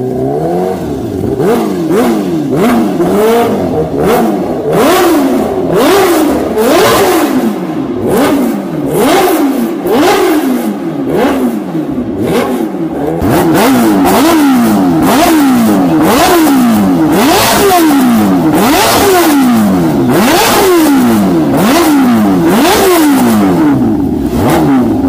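Kawasaki Ninja H2R's supercharged inline-four revved hard over and over, its exhaust note rising and falling about once a second. Sharp pops or cracks come between the revs in the first half.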